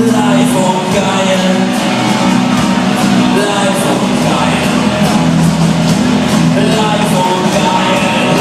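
Live band playing an upbeat rock-and-roll song, with a voice singing over it.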